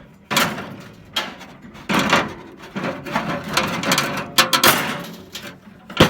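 Handling noises: a series of knocks, rustles and scrapes, roughly one a second, each starting suddenly and fading within about a second.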